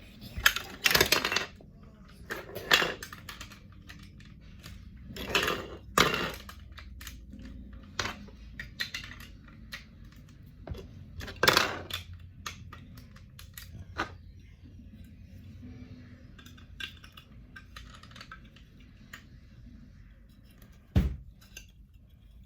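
Plastic LEGO bricks being handled and pressed together: scattered small clicks, with several louder clattering rattles of loose bricks, the first near the start and another about 21 seconds in.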